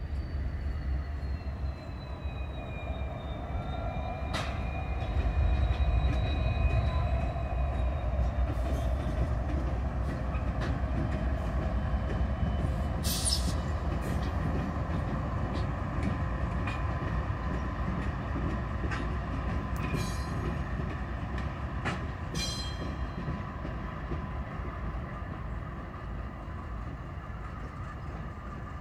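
A lashup of Norfolk Southern diesel locomotives rolling slowly through the yard: steady low engine rumble, a high wheel squeal that slides down in pitch over the first several seconds, and a few sharp clicks of wheels over rail joints. The rumble is loudest a few seconds in and eases off as the locomotives move away near the end.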